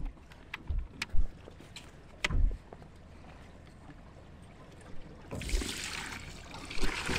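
A few sharp knocks in the first couple of seconds, then from about five seconds in, water poured from a bottle into a plastic bucket, a splashing pour that runs on to the end.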